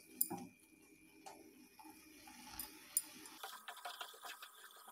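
Wooden spatula stirring and scraping a thick beetroot and coconut mixture in a non-stick kadai, with a few soft knocks against the pan and a run of small scraping clicks near the end; the mixture is being sautéed until its water cooks off.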